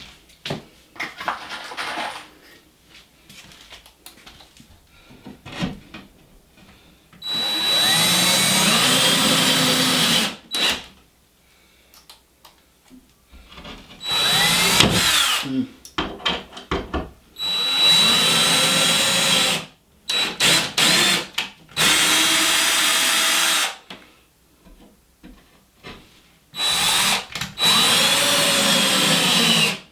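Power drill driving 1 1/4-inch screws through a half-inch drywall patch into wooden furring strips, sinking the screw heads. Light handling clicks for the first several seconds, then seven runs of the drill of one to three seconds each, the motor pitch sagging and recovering within the runs.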